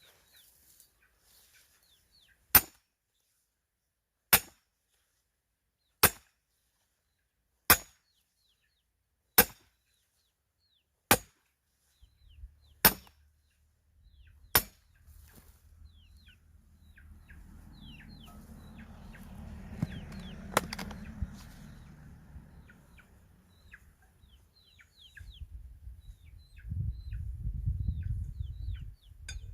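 Eight sharp, loud blows on wood, evenly spaced about a second and a half apart: chopping or hammering at firewood. A low rumbling noise follows, rising near the end.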